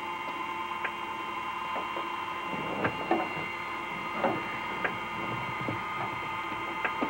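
Steady machine hum from an underwater vehicle's equipment, made of several held tones, with a few scattered clicks and knocks from the manipulator arm and controls at work.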